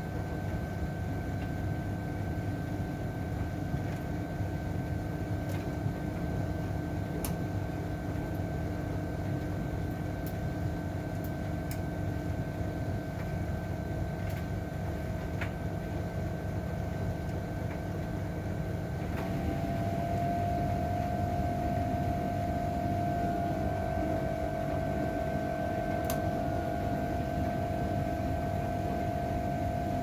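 Front-loading Privileg ProComfort 84614 washer-dryer washing, its drum turning laundry through water with a steady motor hum and whine. About two-thirds of the way in, the motor note shifts higher and grows a little louder.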